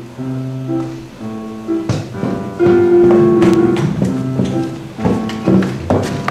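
Instrumental music: a melody of held notes that change every half second or so, with a few sharply struck notes.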